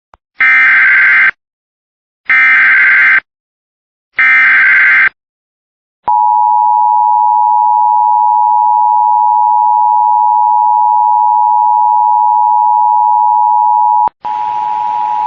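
Emergency Alert System header: three bursts of digital data tones (the SAME code), each about a second long and about a second apart, then a steady attention-signal tone held for about eight seconds. Together they open a flash flood warning. A hiss comes in just before the end.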